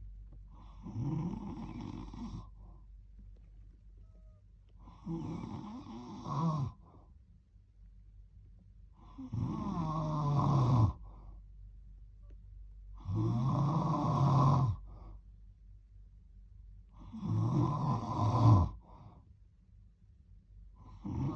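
Snoring: five long snores about four seconds apart, each a low buzz whose pitch drops near its end, with near-quiet breathing gaps between them.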